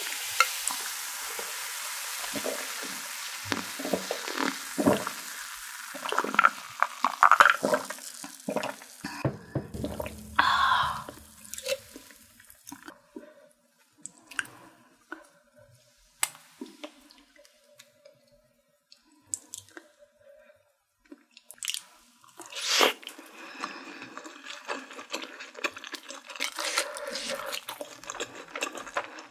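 Grapefruit soda poured into a glass, its carbonation hissing and fading over the first several seconds. Then scattered clicks, taps and wet mouth sounds of takoyaki being eaten and chewed.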